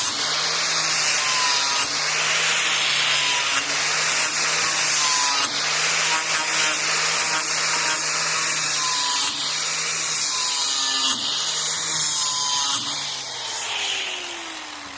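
Electric grinder with an abrasive pad running against the steel edge of a lawnmower blade, worked in repeated passes about every second and a half to smooth the sharpened edge. Near the end it comes off the blade and the motor spins down with a falling whine.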